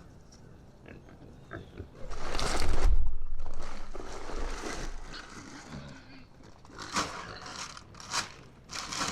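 Pigs at a feeder, grunting and squealing, with crunching and scraping. The loudest part is a noisy rush about two seconds in, followed by several sharp squeals or knocks near the end.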